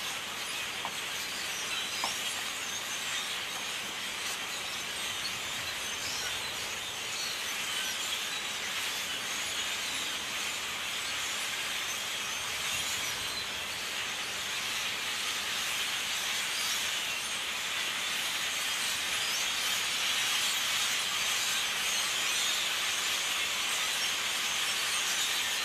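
A huge flock of blackbirds calling all at once: a dense, steady din of countless overlapping calls and chatter that grows a little louder in the second half.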